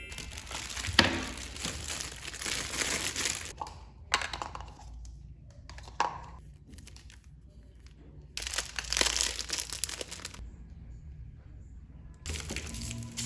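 Packaging being crinkled and rustled in several separate bursts, with a few sharp clicks and a torn sound, as a parcel is unpacked.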